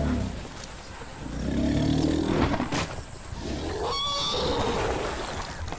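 Elephants calling: deep, low-pitched calls, then a short higher-pitched call about four seconds in.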